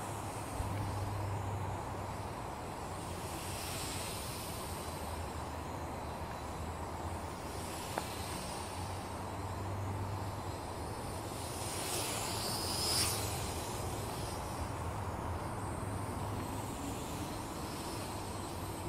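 Small Syma toy quadcopter's propellers buzzing in flight over steady outdoor hiss and a low hum, swelling louder as it passes close about 12 to 13 seconds in. A single sharp click about 8 seconds in.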